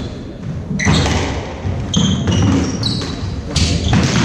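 A squash rally: the ball smacking off rackets and the court walls every second or so, with shoes squeaking briefly on the wooden floor.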